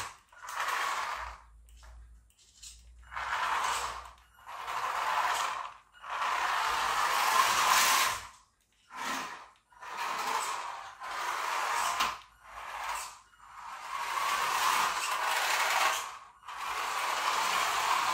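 Small 3D-printed RC car's electric motor and gear train running in repeated bursts as the throttle is applied and released, with tyres on a laminate floor. There are about a dozen spurts, each half a second to two seconds long, with short silences between.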